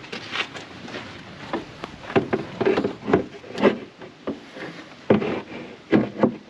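Irregular knocks and clatter of parts being handled and fitted, coming closer together and louder from about two seconds in.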